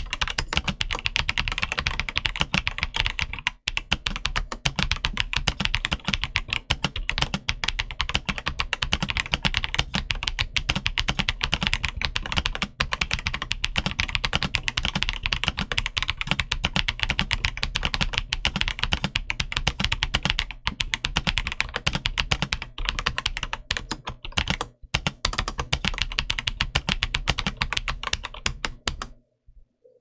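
Continuous fast typing on an XVX S-K80 mechanical keyboard with Outemu Clear Black linear switches and PBT dye-sub keycaps: a dense stream of keystroke clacks. It breaks off for about a second near the end.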